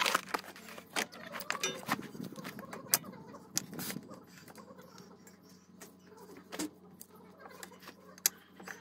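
Scattered metallic clicks and clinks from hand work on a car's front suspension, driveshaft and brake caliper assembly, with two sharper knocks, one partway through and one near the end.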